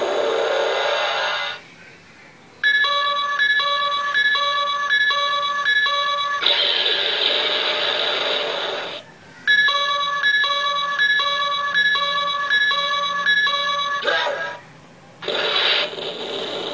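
An Ultraman toy's built-in electronic sound effects: stretches of harsh hissing noise alternate with stretches of a pitched electronic beep that repeats about one and a half times a second. Each stretch lasts a few seconds, with brief pauses between them.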